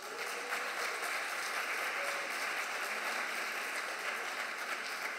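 Audience applauding: steady clapping from many people that starts to die down near the end.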